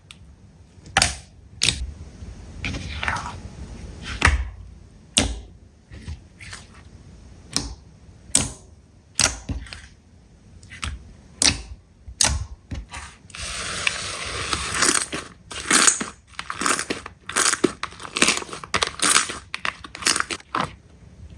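Green slime being squeezed and poked by hand: irregular sticky pops and clicks, turning into a denser crackling over the second half.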